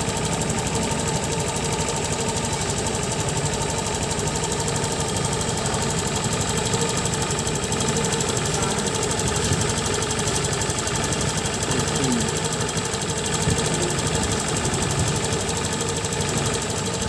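Honda Click 150i scooter's single-cylinder four-stroke engine running steadily at an even speed.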